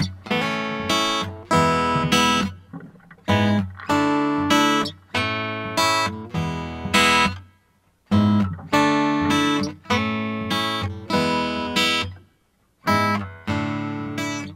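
Background music of a strummed acoustic guitar playing rhythmic chords, dropping out briefly twice.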